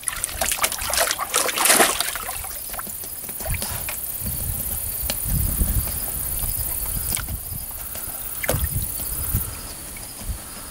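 Water splashing and dripping in a plastic stock tank as a Border Collie paws at it and dunks its muzzle after goldfish: a flurry of splashes in the first two seconds, then quieter trickling with a few single splashes.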